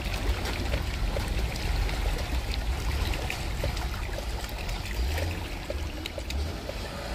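Muddy runoff water streaming over rocks and gravel across a washed-out road, with a steady low rumble underneath and small scattered splashes and clicks.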